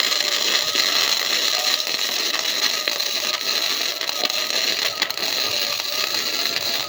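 Electric arc welding tacking steel axle hangers: a steady crackling hiss with fine rapid ticks, held for several seconds.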